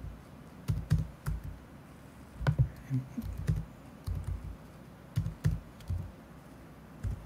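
Computer keyboard being typed on: short irregular runs of key clicks with dull thuds, broken by brief pauses.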